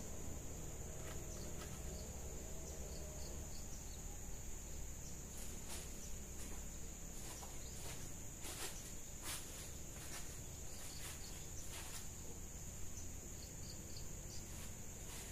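Steady high-pitched chirring of insects, with a run of crunching footsteps on dry leaves in the middle.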